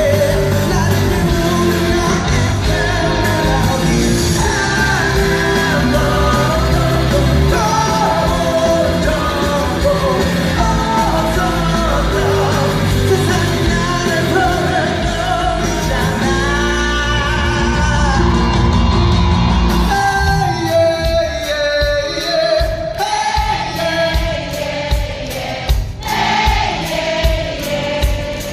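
Live pop-rock band with a male lead singer, loud. About 20 seconds in, the full band drops back, leaving the voice over a sparse, steady ticking beat.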